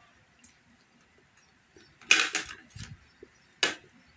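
Close-up eating noises from a person eating crab and fish by hand: a short wet mouth sound about two seconds in, a few faint clicks, and a single sharp tap near the end as a small sauce bowl is handled on the table.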